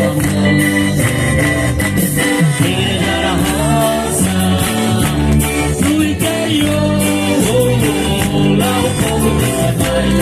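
A Christian worship band playing a praise song, with a lead voice singing over guitar and a steady beat.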